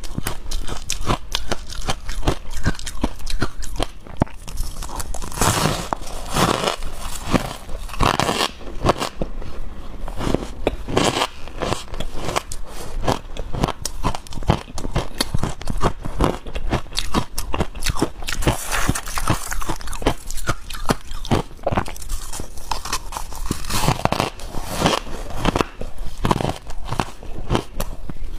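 Biting and chewing chunks of matcha-powdered ice, close to the microphone: a dense, irregular run of crunches and crackles.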